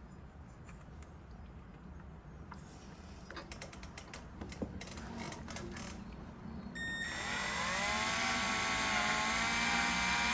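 Scattered light clicks of tool handling. About seven seconds in, an electric drill spins up with a rising whine and settles into a steady whine, turning a 1/8-inch left-hand cobalt drill bit into a broken hardened bolt.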